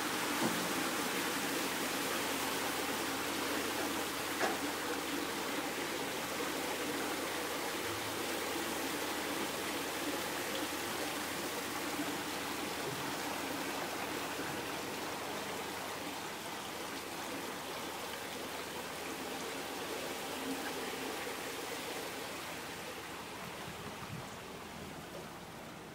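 Water rushing through a canal lock's sluices as the lock chamber levels, a steady rush that slowly grows quieter toward the end.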